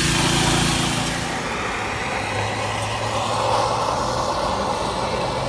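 Truck engine running steadily; a little over a second in, the sound changes and gets slightly quieter, then goes on as a steady hum.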